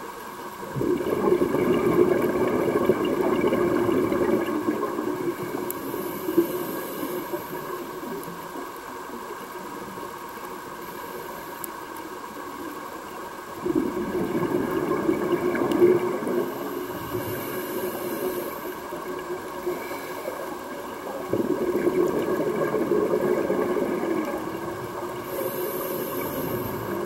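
A scuba diver's regulator heard underwater: three long exhalations of rumbling bubbles, each a few seconds long, with a short hissing inhalation after each.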